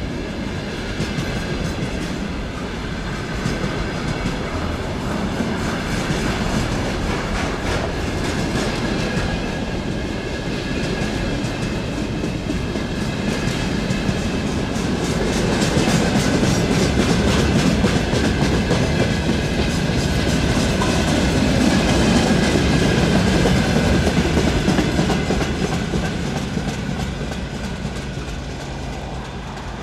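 Wagons of a long mixed freight train rolling past, wheels clicking rapidly over the rail joints over a steady rumble. It gets louder about halfway through and eases off near the end.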